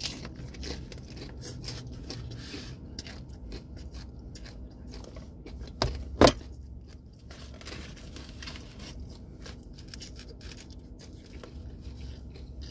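Crunching and chewing of a crispy fried taco shell, with small scrapes and rustles of a styrofoam clamshell box being handled. A sharp knock about six seconds in is the loudest sound.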